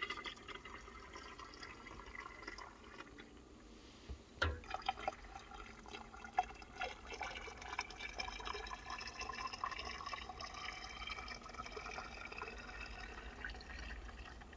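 Freshly boiled water poured into a hot water bottle through its narrow neck, first from a mug and then from a saucepan; the filling sound rises in pitch as the bottle fills. A single knock about four and a half seconds in.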